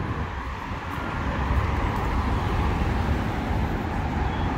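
Street traffic: cars driving past on a multi-lane city road, a steady rumble of engines and tyres that swells a little about a second and a half in.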